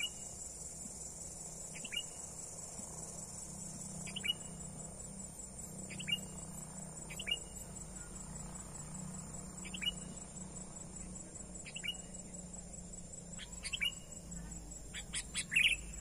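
Sooty-headed bulbul (kutilang) giving short, sharp calls about every two seconds, with a quicker run of fuller calls near the end, over a steady high insect drone.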